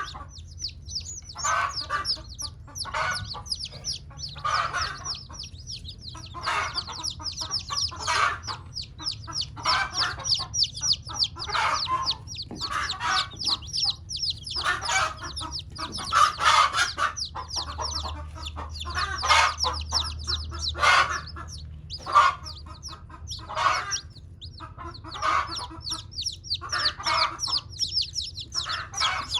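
Hen clucking in short calls about once a second, over the continuous high-pitched peeping of newly hatched chicks.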